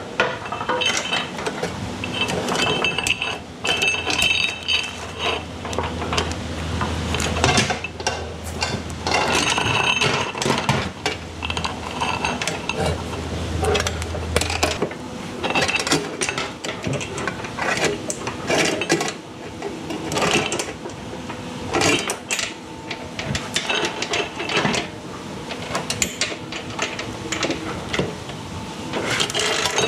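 Kawasaki F7 motorcycle's roller drive chain clinking and rattling in irregular short runs as it is handled and fed by hand around the sprockets.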